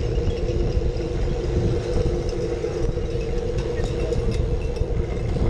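Wind rumble and road noise on a seat-mounted camera as a Brompton folding bike rolls along the street, with a steady hum underneath.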